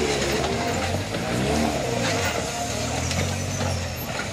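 Engine of a tube-framed 4x4 trial buggy revving as it crawls over rough ground, its note rising and falling with the throttle.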